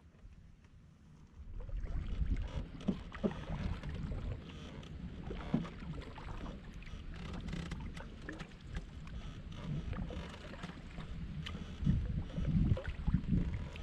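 Canoe paddling: paddle strokes and water, with scattered knocks against the hull. A low wind rumble on the microphone starts about a second and a half in.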